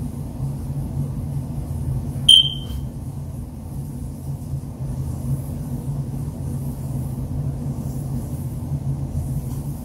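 Steady low background hum, with one short high-pitched electronic beep a little over two seconds in.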